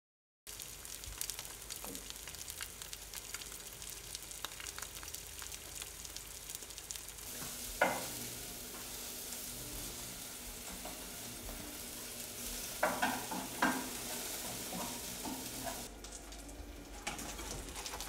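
Egg frying in a pan, with a steady sizzle and a few sharp knocks: one about halfway through and a couple more a little later. The sizzle thins out near the end.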